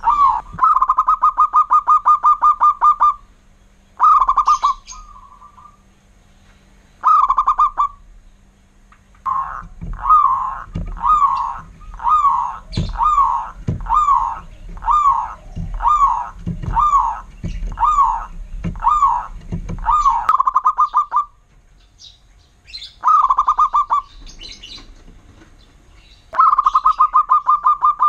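Zebra dove (perkutut) song: fast rolling trills of soft notes alternating with a run of about a dozen separate coos, roughly one a second, in the middle. Another trill starts near the end.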